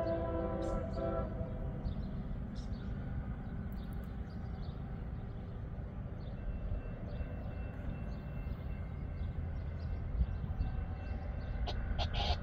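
CSX ES44AH locomotive's five-chime K5L air horn finishing a horn salute, its chord cutting off about a second in, followed by the steady low rumble of the freight train passing.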